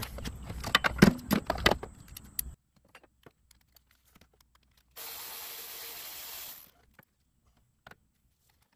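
Clinking and rattling of metal hand tools working a bolt on the alternator bracket, then a steady hiss lasting under two seconds, followed by a few light clicks.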